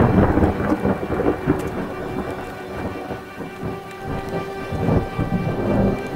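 Thunder from a supercell thunderstorm rumbling and fading away, with rain falling, then swelling again in a second rumble about five seconds in.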